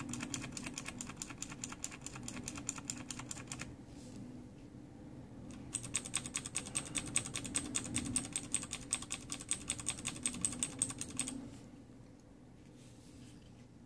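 Rapid typing on clicky mechanical keyboards: a run of Kailh Green switch keystrokes, then after a short pause a louder, brighter run on Cherry MX Blue switches, which stops about two seconds before the end. The Kailh Greens sound a little muted next to the Cherry MX Blues.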